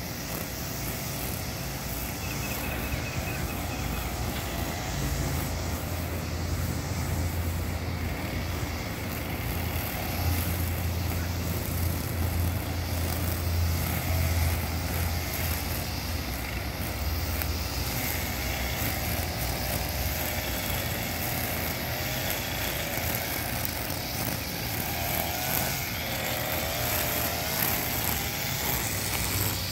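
Echo SRM-230 two-stroke string trimmer running steadily at cutting speed, its line cutting grass.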